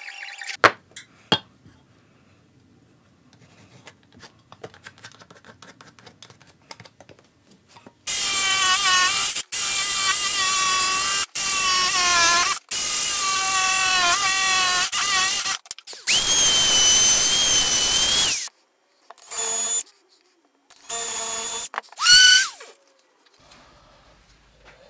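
Cordless jigsaw cutting a small piece of wood in a run of bursts a few seconds long, the motor's pitch dipping and rising with the trigger and the load. Near the end come three shorter bursts of a power tool, and at the start a few light knocks.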